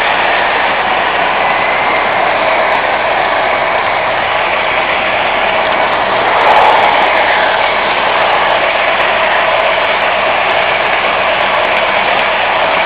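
O-gauge model train running on its layout track: a steady mechanical running noise from the motors and wheels, with a brief swell about six and a half seconds in.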